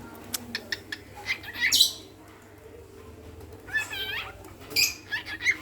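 A pet bird calling in three short bursts of high chirps and squawky notes, with a few small clicks between them.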